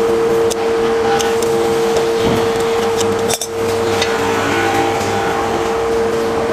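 Plastic packaging rustling and tearing, with scattered sharp clicks and taps, as a coil of EPDM rubber windscreen seal is unwrapped. A steady hum runs underneath.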